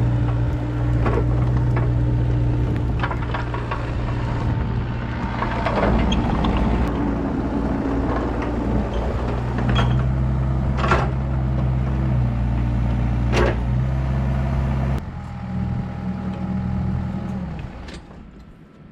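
Kubota KX121-3 mini excavator's diesel engine running steadily, with several sharp metal clanks over it as the machine works. Near the end the engine settles lower, then shuts off.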